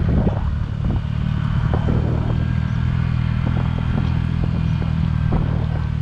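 Motorcycle engine running steadily at low revs on a mountain-road descent, with irregular clicks and rattles over it.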